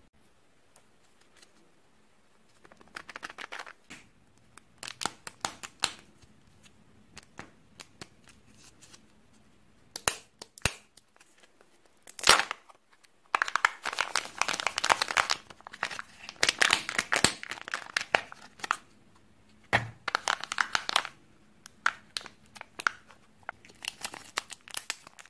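Kinder Joy egg's foil wrapper being crinkled and torn open by hand, in irregular bursts of crackling, with two sharp clicks partway through.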